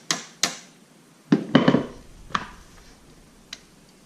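Hand tools clinking and knocking during work on a pit bike: a few single sharp taps, with a louder quick run of knocks about a second and a half in.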